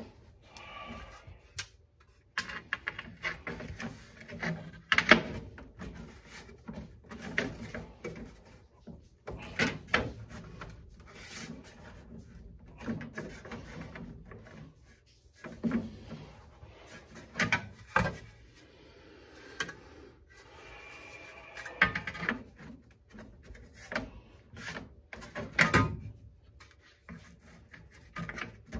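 Carpet being worked into place along a car's door sill: rubbing and rustling of the carpet with irregular knocks and clunks, about half a dozen of them sharp.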